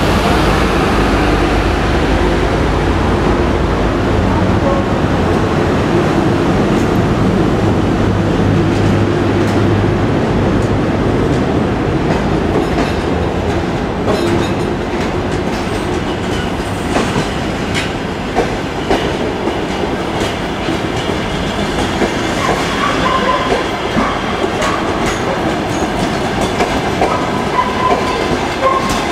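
The sleeper coaches of the Armenian Railways night train "Ararat" roll steadily past as the train pulls out, their wheels clicking over the rail joints. A steady low hum runs under the first third, and a few brief wheel squeals come near the end.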